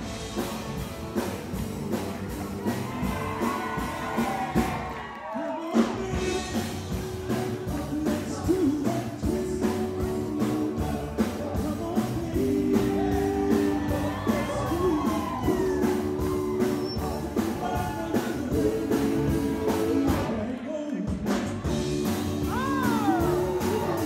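A song with a singer over a steady beat, playing for a dance. The music drops out briefly twice, about five and a half seconds in and again about three seconds before the end.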